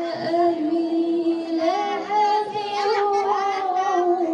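A girl's solo voice chanting a melodic Qur'an recitation (tilawah) into a microphone, in long held notes that step up in pitch about a second and a half in and ease down near the end.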